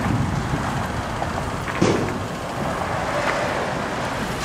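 Outdoor street noise: wind rumbling on the microphone over road traffic. There is a single short knock a little under two seconds in.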